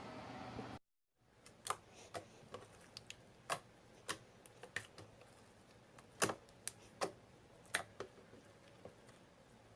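Homemade fluffy slime being squeezed and stretched by hand, making an irregular string of sharp clicks and pops, a lot of noise, that thin out near the end.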